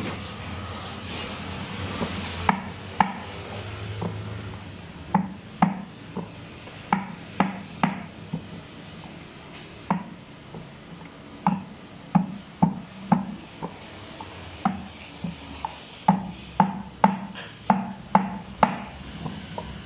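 Stone pestle pounding boiled jengkol beans flat on a wooden board: sharp knocks, often in quick runs of two or three, starting about two seconds in.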